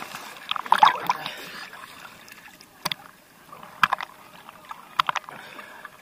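Seawater sloshing and splashing against a camera bobbing at the surface of small choppy waves, with a cluster of sharp splashes about a second in and single sharp slaps every second or so after.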